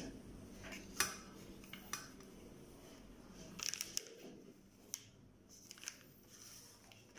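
Scattered small clicks, taps and light rustles of things being handled, with the sharpest click about a second in and a short burst of rustling just past the middle.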